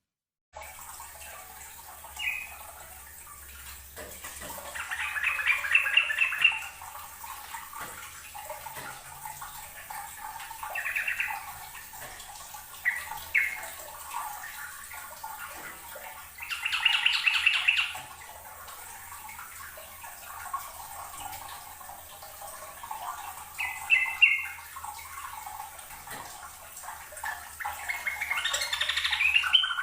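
Yellow-vented bulbul (trucukan) singing short, rapid phrases in bursts a few seconds apart, about seven in all, with the longest phrases near the middle and at the end.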